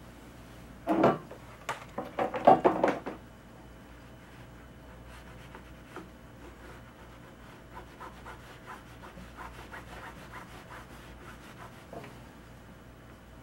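Clothes iron sliding and rubbing over a shirt collar on a small ironing board, pressing it to set liquid stitch fabric glue. A few loud scraping strokes come between about one and three seconds in, then a run of softer, quick rubbing strokes from about eight to eleven seconds.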